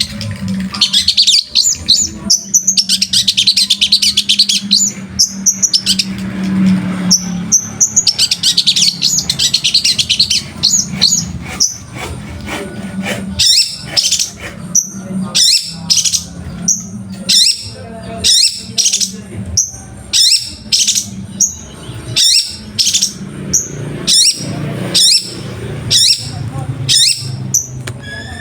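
Long-tailed shrike singing. A fast, dense chattering run of notes comes first, with a short break about six seconds in. From about twelve seconds in, sharp single notes repeat evenly, about one and a half a second.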